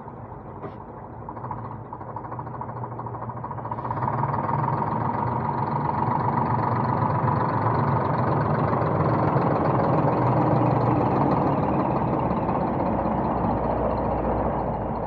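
Scania R480 hooklift truck's six-cylinder diesel engine running as the truck drives slowly up to and past close by. It grows louder about four seconds in and eases off near the end.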